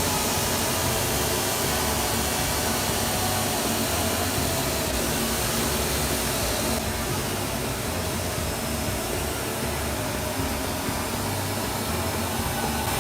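Electric drill running steadily while driving a homemade sanding attachment, a constant motor whine and rushing noise.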